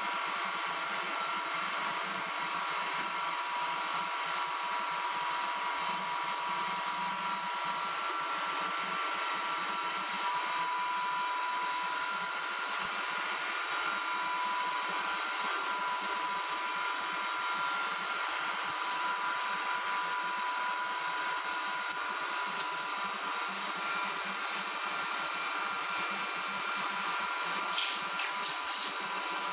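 INDINS homo mixer, a high-shear rotor-stator mixer, running steadily at speed while dispersing CMC in water: an even motor whine with several steady tones over a hiss. A few short clicks come near the end.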